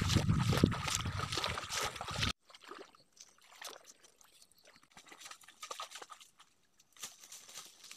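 Footsteps sloshing through shallow marsh water, cut off abruptly about two seconds in. Then faint rustling, with louder crackling of feet and brush through dry leaves and undergrowth near the end.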